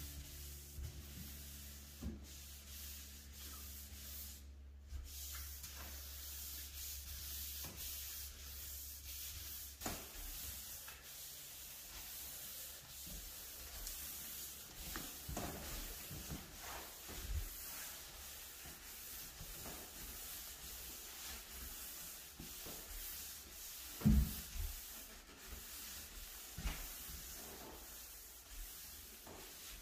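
Floor-finish applicator pad on a pole, pushed and dragged back and forth over a wooden floor through wet polyurethane: a steady soft rubbing and swishing. There are occasional knocks, the loudest about two-thirds of the way in, and a low hum runs under the first several seconds.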